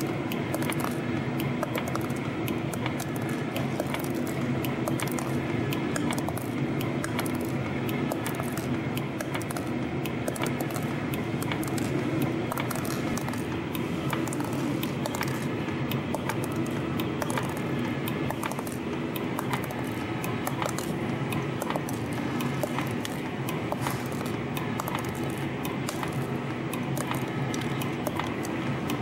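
A CNC spring coiling machine running as it feeds and coils beryllium copper wire into small coil springs. It gives a steady motor hum laced with rapid, light metallic clicks from the coiling and cutting tools.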